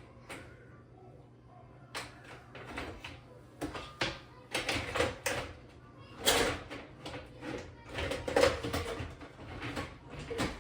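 Dishes and utensils clinking and knocking as they are set into a dishwasher's racks, with a run of irregular clatters that grows busier about two seconds in.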